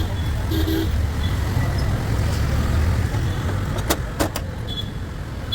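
Street traffic: a steady low rumble of passing vehicles, with a short horn toot just after the start and two sharp clicks about four seconds in.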